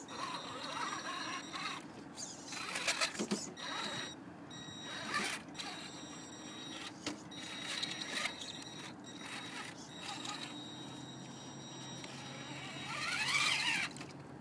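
Traxxas Summit electric RC rock crawler's motor whining in short bursts of throttle as it crawls down a rocky dirt bank, with tyres scraping and crunching over dirt and stones. The loudest burst, near the end, is a whine that rises in pitch.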